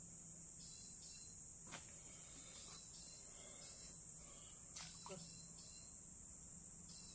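A steady, faint, high-pitched chorus of insects chirring, with a couple of faint sharp clicks.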